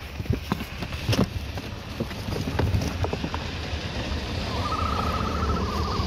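Ostrich chicks shifting inside a perforated shipping box, giving a few knocks and scrapes. Near the end a chick gives a wavering trilled call lasting about a second and a half, over a steady low rumble.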